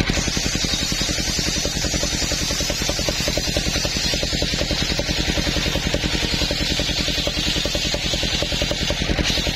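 Circular saw bench ripping a coconut-wood plank: a dense cutting hiss over the steady rapid beat of the engine that drives the saw. The cutting noise changes near the end as the cut finishes.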